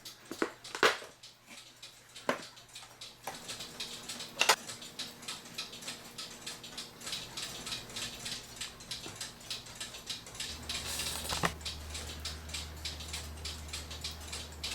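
Wooden cuckoo clock case parts being handled and fitted back together: a few sharp knocks among many light clicks and rubbing sounds. A steady low hum comes in about ten seconds in.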